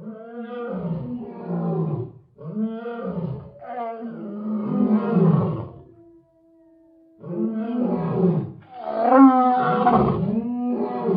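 Lion roaring: a series of deep moaning roars, one after another, with a short pause about six seconds in. The loudest roars come near the end.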